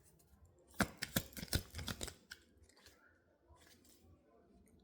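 Tarot cards being handled on a table: a quick run of sharp clicks and taps about a second in, dying away to faint rustling.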